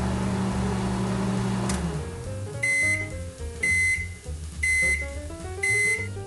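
Consul microwave oven's running hum stops about two seconds in as its rice programme ends. Its end-of-cycle beeper then sounds four times, about one high beep a second, signalling the rice is done.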